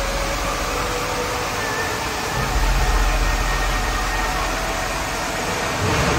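Steady rushing of water running down water slides and churning in the foaming run-out channels, with a low rumble underneath.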